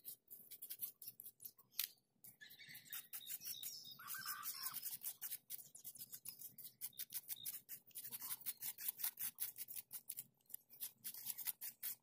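Metal spoons and fingers scraping and raking through coarse, shelly beach sand: a fast run of faint, dry scratching ticks.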